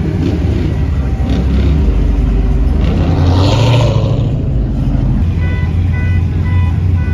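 Dodge Charger's engine running with a deep rumble as the car pulls away, swelling into a louder surge about three seconds in. After a sudden change a couple of seconds later, a steady low engine rumble carries on under faint repeated beeps.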